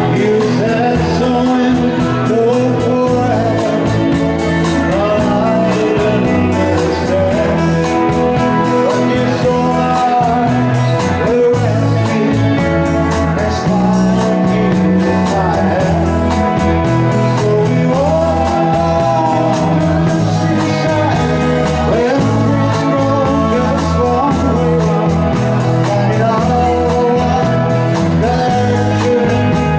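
Live rock band playing: a man sings lead over electric guitar, bass guitar and drums.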